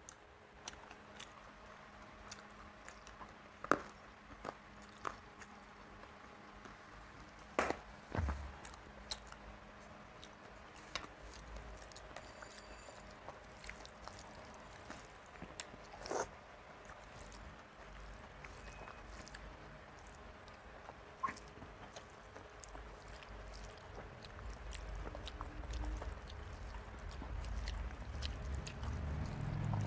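Quiet eating sounds: rice mixed by hand with ridge gourd and potato poppy-seed curry, and chewed, with a few sharp clicks. A low rumble builds over the last few seconds.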